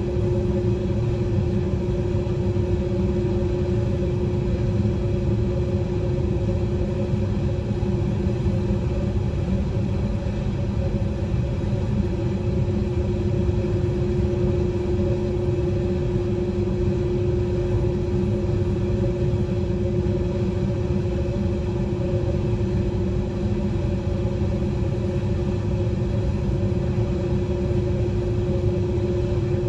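Jet airliner's engines idling at a standstill before the takeoff roll, heard inside the cabin: a steady low rumble with a constant hum that does not change.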